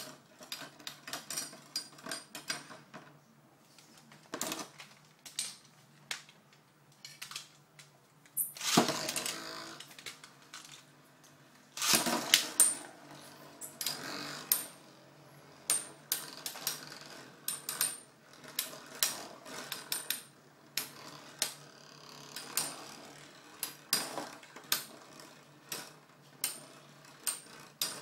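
Two Metal Fight Beyblades, Basalt Horogium 145WD and Killer Beafowl UW145EWD, spinning in a clear plastic stadium and clashing again and again: sharp metal clicks about once a second, with two longer runs of rapid hits about nine and twelve seconds in, the second one loudest.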